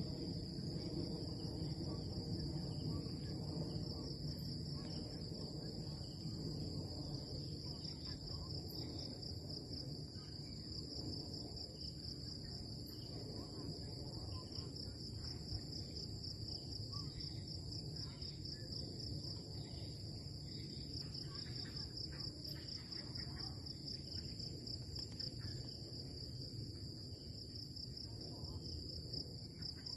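A chorus of crickets chirping in a continuous, finely pulsing high trill, over a low, steady background noise.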